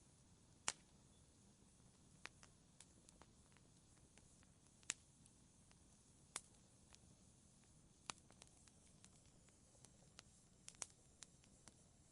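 Wood fire crackling: sharp pops and snaps at irregular intervals, a louder one every second or two among fainter ticks, over a faint steady hiss.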